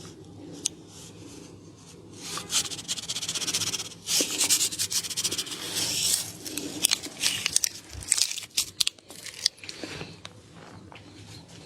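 Close-miked rubbing and crackling of hands working over skin in a neck massage, with scattered sharp clicks. It grows louder and denser about four seconds in, then thins out toward the end.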